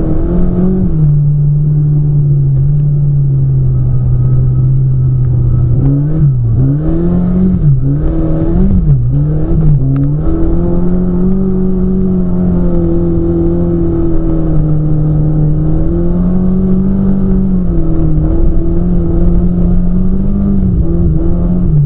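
Car engine heard from inside the cabin, running steadily under way. About a third of the way in its pitch drops and rises several times in quick succession, then climbs and holds higher.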